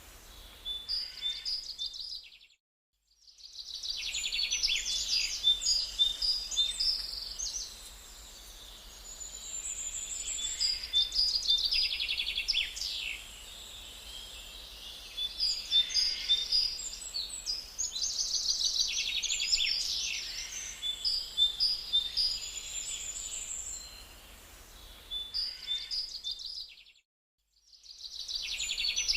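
Songbirds singing in woodland: repeated high trills and chirps, several phrases overlapping over a faint low hum. The sound cuts out to silence twice for about a second.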